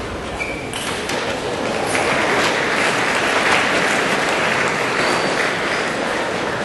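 Arena crowd applauding, swelling about two seconds in and easing slightly towards the end.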